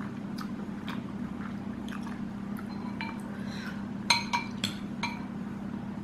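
Eating sounds: faint clicks of chewing, then a quick run of four or five sharp, ringing clinks on a ceramic plate a little after four seconds in, over a steady low hum.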